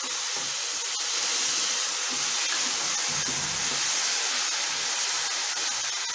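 Roasted moong dal and sugar sizzling with a steady hiss as added milk cooks off in a hot pan, while a wooden spatula stirs the mixture.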